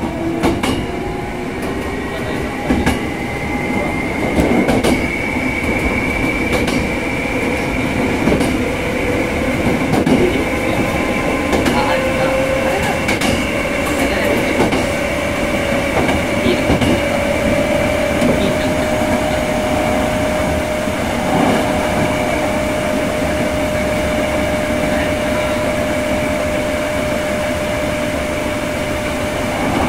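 Hankyu 6300 series electric train running, heard inside the passenger car: steady running rumble with a whine that rises in pitch over the first several seconds and then holds steady. Scattered clicks and knocks from the wheels on the rails.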